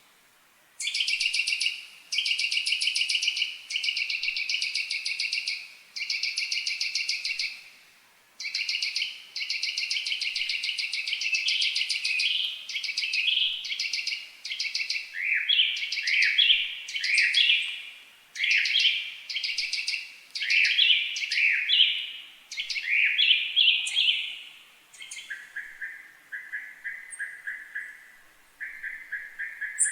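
A bird singing: a run of rapid, high trills lasting a second or two each with short pauses between them, which partway through turn into quicker, varied chirping phrases and then lower, shorter trills near the end.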